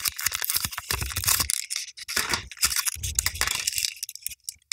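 Hot Wheels plastic blister pack and its cardboard card being torn and crinkled open by hand: a dense run of crackles and rips with a few handling bumps, thinning out about four seconds in.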